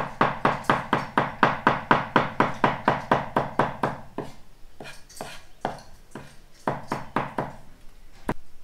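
Large kitchen knife mincing food on a round wooden chopping board: rapid, even strokes about four or five a second, slowing to a few scattered knocks about halfway through.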